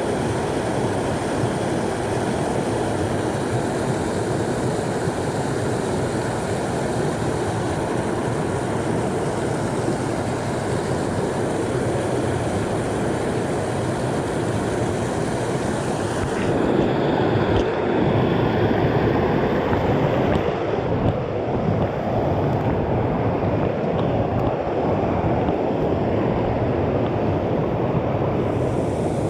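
Mountain creek water rushing steadily. A little past halfway the sound turns duller and slightly louder.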